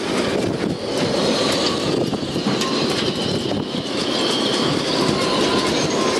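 Storm-force wind, gusting to 61 knots, blowing through the masts and rigging of moored sailing yachts: a loud constant rush with several high whistling notes held over it.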